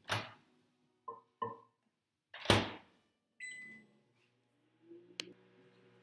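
Countertop microwave oven being loaded and started: a few light knocks, the door shutting with a loud thunk about two and a half seconds in, and a keypad beep. Then a click, and the oven starts running with a steady low hum.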